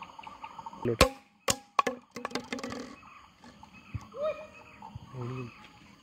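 Insects chirring steadily in the background, with a few sharp knocks and a short run of clattering between about one and three seconds in.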